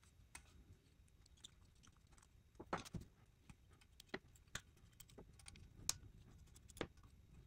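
Faint, irregular clicks and light metallic taps of a hand tool and small parts as the screws of an AEM fuel pressure regulator are undone. They come at uneven gaps, and the sharpest fall about three seconds and six seconds in.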